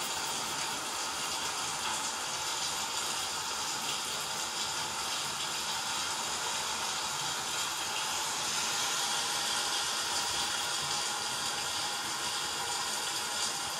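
Steady rushing storm noise of wind and rain, swelling slightly about eight seconds in.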